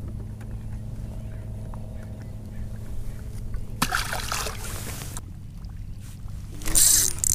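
Small largemouth bass dropped back into the lake, splashing into the water about four seconds in, over a low steady hum. A louder burst of noise comes near the end.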